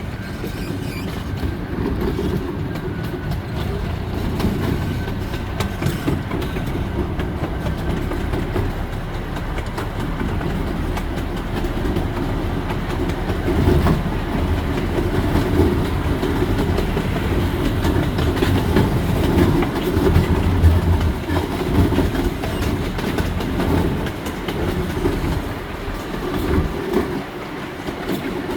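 Miniature park train running along its track, heard from the front car: a steady rumble of the wheels on the rails with a run of light clicks, a little louder for a while in the middle.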